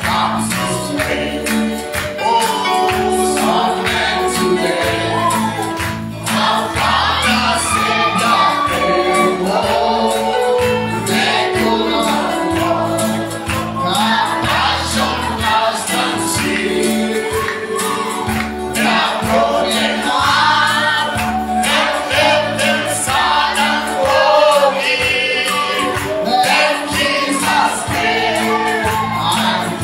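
Gospel worship music: a group of voices singing together over a band's bass line and steady percussion, with tambourine.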